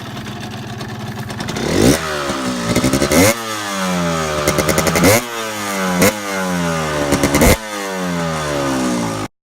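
Yamaha DT125's two-stroke single-cylinder engine being revved: after a steady idle it is blipped sharply about five times, each rev dropping back in pitch, with fast stuttering bursts between some blips. It cuts off abruptly near the end.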